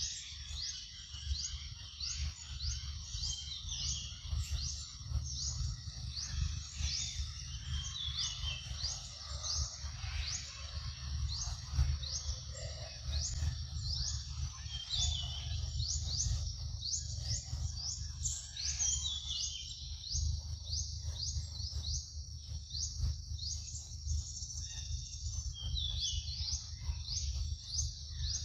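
Forest ambience: short rising chirps repeated about two a second, with now and then a lower, hooked bird call, over a steady low rumble.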